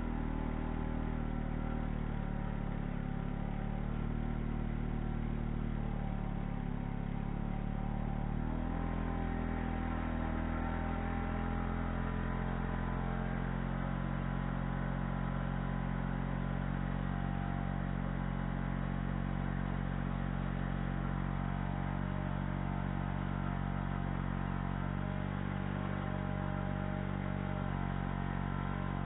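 Two-stroke chainsaw running steadily while bucking firewood logs, its tone shifting slightly about eight seconds in.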